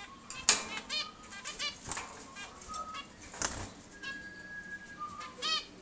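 A small flock of cage birds (budgerigars, zebra finches and a canary) chirping with many short, repeated calls. Two loud whooshes of wing-flapping come about half a second in and again about three and a half seconds in, and one steady whistled note is held for about a second just after four seconds.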